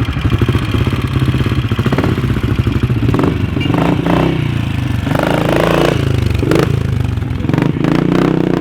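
Simson AWO four-stroke motorcycle engines running with a pulsing, thudding beat, the sound that earned the AWO the nickname "steam hammer". The engines rev up and down in the middle, with several engines overlapping.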